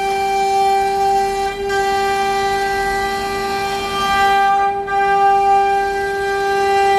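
Spindle of a Business Start CNC router running with a steady high whine at a constant pitch, its cutter milling the machine's own plywood table.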